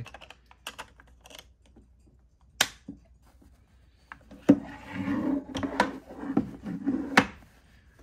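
Hands handling the hard plastic base of a Gemmy animatronic witch prop: scattered clicks and taps around its battery-pack cover, with one sharp click about two and a half seconds in. In the second half comes a busier run of plastic knocks and clicks with rustling as the prop is moved.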